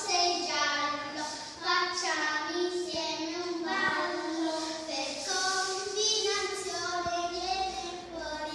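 Young children's voices singing a rhyme in sustained, pitched phrases.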